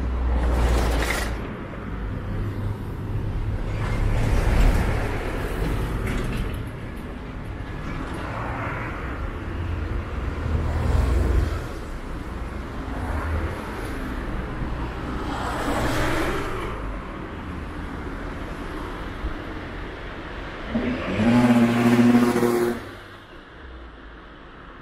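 Road traffic passing close by: cars and trucks go by one after another, each swelling and fading over a low rumble. About 21 seconds in, the loudest vehicle passes with a steady engine hum. Soon after, the traffic sound falls away.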